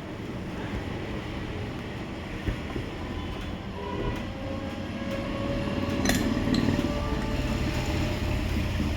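A car engine running with a steady mechanical hum, with a few light metallic clinks.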